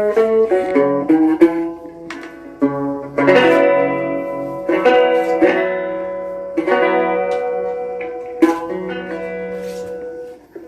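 Acoustic guitar being played: a few single plucked notes, then a run of strummed chords, each left to ring, fading out near the end.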